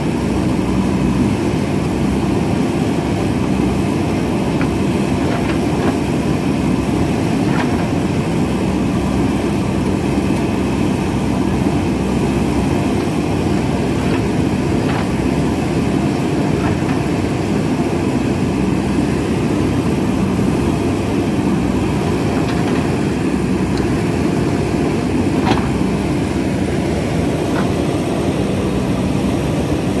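JCB backhoe loader's diesel engine running steadily under load as the backhoe arm digs into the hillside, with a few faint knocks now and then.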